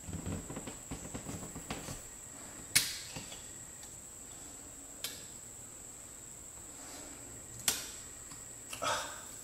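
A knife blade cutting and prying at hardwood flooring: soft scraping for the first two seconds, then a few sharp clicks and a short scrape as the blade catches and snaps against the wood. A steady high-pitched whine runs underneath.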